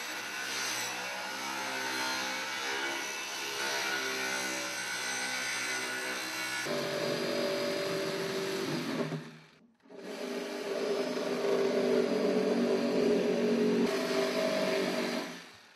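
Power saws running steadily while cutting an opening in the BlueDuct linear diffuser adapter: first a circular saw, then, after an abrupt change in pitch about six and a half seconds in, a smaller handheld power tool. The second tool stops briefly near the ten-second mark, then runs again and winds down near the end.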